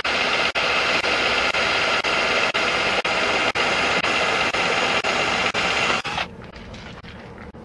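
Power drill driving a screw into a boat's rub rail: a steady, noisy whir with a regular click about twice a second. It stops suddenly about six seconds in, leaving only faint background noise.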